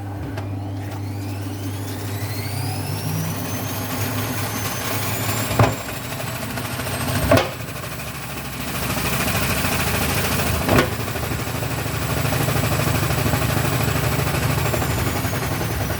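Vestel washing machine's motor spinning the drum up, its whine rising over the first few seconds, then holding and starting to fall near the end. Three loud knocks come in the middle, the drum banging with an unbalanced load.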